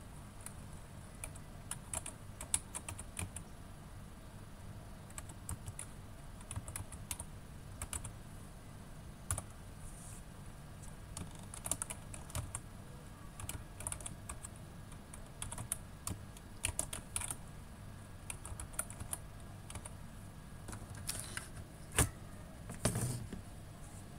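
Typing on a computer keyboard: irregular clusters of key clicks with short pauses between, and one louder click near the end, over a faint steady hum.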